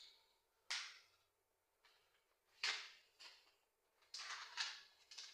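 Faint pen strokes on paper as lines of a diagram are drawn: a handful of short scratchy strokes, with a longer one about four seconds in.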